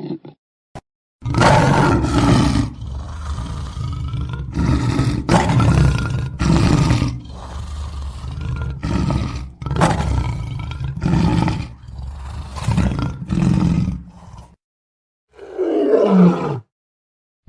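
Lion roaring and grunting in a long run of loud calls about a second apart, cutting off near the end. After a short gap comes one more roar that falls in pitch.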